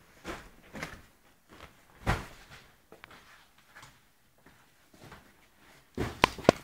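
Cardboard and newspaper in big woven bulk bags being jostled by a playing dog: scattered short rustles and knocks, the loudest about two seconds in, with a quick cluster near the end.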